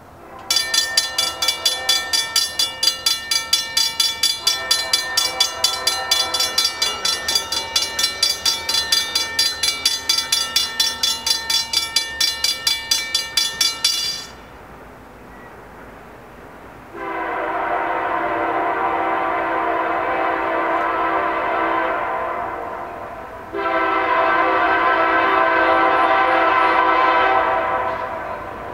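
Railroad grade-crossing warning bell ringing rapidly, about three strikes a second, stopping about halfway through once the gates are down. Then the approaching Union Pacific SD70M locomotive's air horn sounds two long chord blasts for the crossing.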